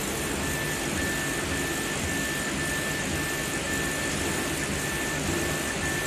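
CO2 laser engraving machine running: a steady hum and rush of air, with a high whine that breaks off briefly about twice a second as the head works back and forth across the glass.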